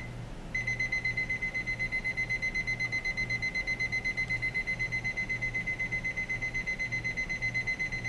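Electronic alarm of a Timelink 88036 LCD alarm clock beeping: a high-pitched electronic beep repeated rapidly and evenly, resuming after a short pause about half a second in.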